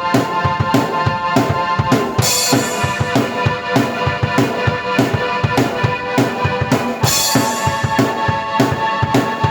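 Drum kit and keyboard played together by one player: a steady kick-and-snare beat under held keyboard chords, with a cymbal crash about two seconds in and another about seven seconds in.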